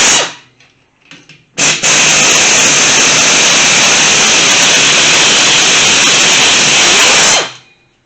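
Handheld power tool running: a brief blip at the start, then one continuous run of about six seconds that stops abruptly, backing out corroded bolts from a Kawasaki KZ400 motorcycle engine case.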